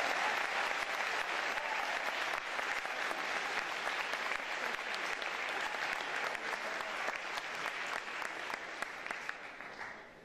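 Large audience applauding, the clapping dying away near the end.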